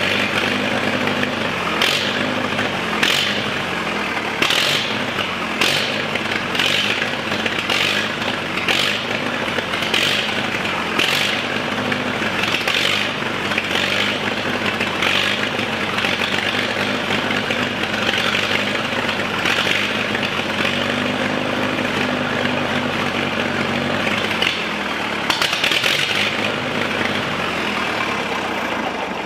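The gasoline engine of a 1964 Minneapolis Moline M602 tractor running unevenly, with its speed wavering and a burst of noise about once a second. It is kept alive on gasoline poured straight into the updraft carburetor, because it isn't pulling fuel on its own.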